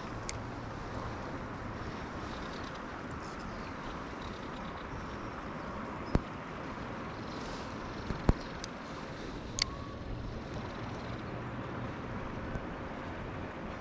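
Steady rushing of river water, with a few sharp clicks about six, eight and nine and a half seconds in.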